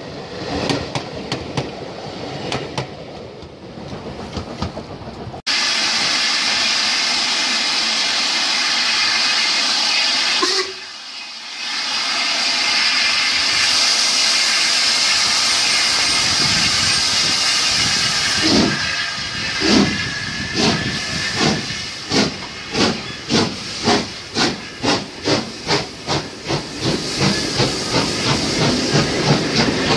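Carriages of a passing train clattering over the rails. Then a Black 5 steam locomotive hisses steam loudly while standing. It pulls away with exhaust chuffs that start about a second apart and quicken steadily as it gathers speed.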